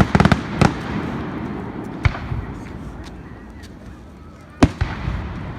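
Aerial fireworks going off: a fast run of crackling pops at the start fading into a rumbling echo, then a sharp bang about two seconds in and a louder bang followed by a few smaller pops near the end.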